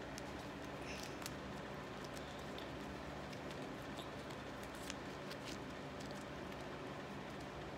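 Faint rustling and scattered light clicks of a duct-tape hand wrap being wound around the hand, over a steady low hum.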